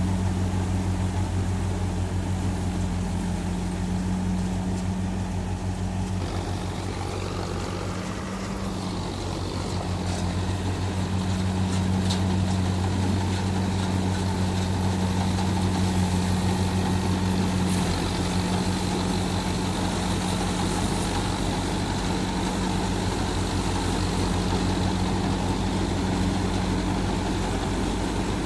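Engine of a rice harvesting machine running steadily with a low hum, dipping slightly in level about a quarter of the way in before picking up again.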